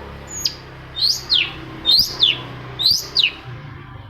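Long-tailed shrike (cendet) calling: four sharp notes, each sweeping quickly down in pitch, about one a second.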